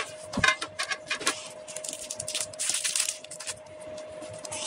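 Trading cards and foil booster packs being handled in a metal tin: a run of small clicks and rustles, with a denser crinkling stretch about two and a half seconds in. A faint steady hum lies underneath.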